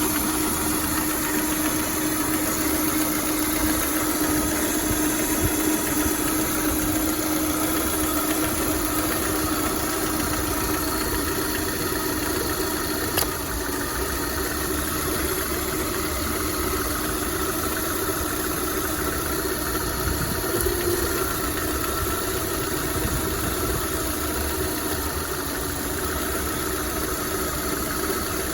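VAZ-21124 1.6-litre 16-valve four-cylinder engine idling steadily with a knock, whose cause the owner is asking about.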